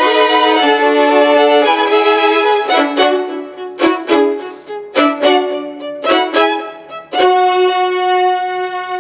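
Violin music: held notes at first, then a string of short, separated notes in the middle, then one long held note near the end.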